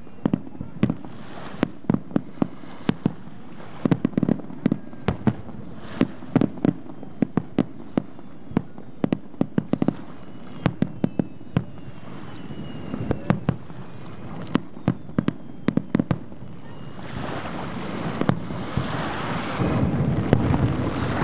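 Fireworks heard from a distance: a long, irregular run of sharp bangs and crackles from bursting aerial shells. In the last few seconds a rushing noise swells up underneath them.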